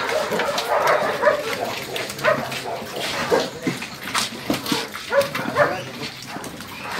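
A crowded pack of dogs, German shepherds among them, barking in short, irregular calls, several dogs overlapping.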